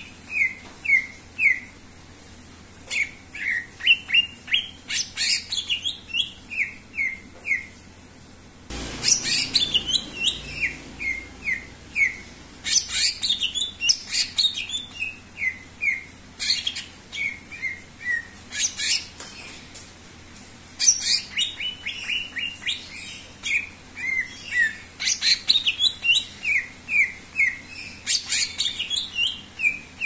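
Male cucak ijo (green leafbird) singing hard in the prolific 'gacor' manner: quick runs of short, falling whistled notes mixed with sharp high chips, in bursts separated by brief pauses.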